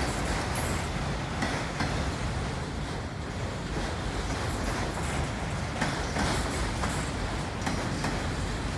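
Freight train of autorack cars rolling past: a steady rumble of steel wheels on the rails, with a few faint clicks here and there.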